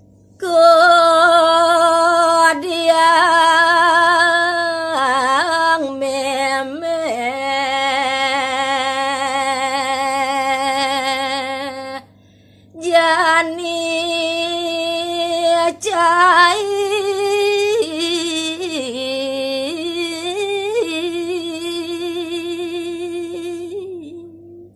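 A woman singing a Balinese pupuh (gaguritan verse) solo and unaccompanied: two long, slow phrases of held notes with vibrato and ornamented turns, with a short break for breath about halfway.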